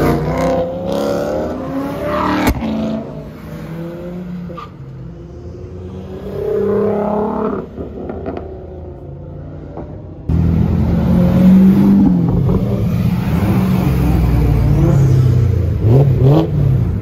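Supercar engines revving, rising in pitch in short runs. About ten seconds in it cuts abruptly to a louder stretch of engines running and accelerating, with quick revs near the end.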